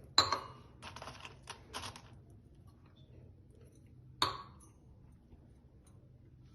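Kitchen vessels and utensils clinking as they are handled: a sharp ringing clink, a few lighter clicks over the next couple of seconds, then another ringing clink about four seconds in.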